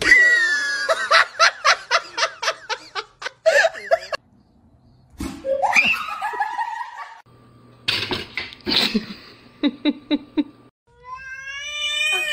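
Bursts of a person's laughter, in quick repeated pulses over the first few seconds, with shorter voice sounds further on. Near the end comes a long, drawn-out cat yowl that rises slightly in pitch.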